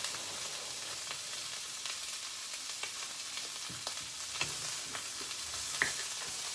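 Dried salted anchovies sizzling as they fry in a pan with sambal. A spatula stirs them with scattered short clicks and scrapes against the pan, the sharpest about six seconds in.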